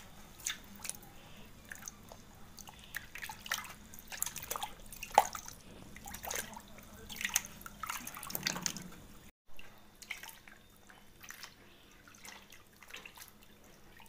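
A hand squeezing and kneading soaked maida dough under water in a steel bowl: irregular splashing, squelching and dripping, busiest in the first two thirds, then softer sloshing after a brief break a little past halfway.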